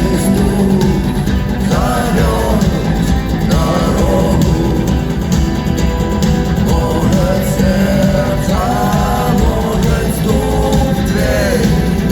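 Rock song with singing over a full band of guitars and drums, playing steadily and loudly.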